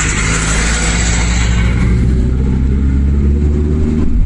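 A motor vehicle engine running steadily, a low drone, with the rushing noise of road traffic fading away over the first couple of seconds.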